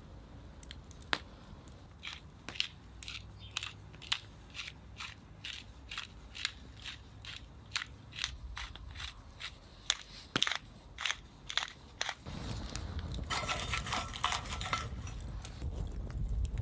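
Pepper grinder being twisted over raw tuna steaks, giving a quick run of crunchy grinding clicks, two or three a second. About twelve seconds in, a steady low rumble with crackling takes over, from the campfire under a cast-iron pan.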